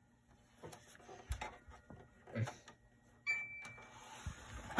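A DVD player's disc tray with a disc being set into it, making light clicks and taps. About three seconds in, a short high beep sounds and a faint steady mechanical whir starts as the player's tray mechanism begins to run.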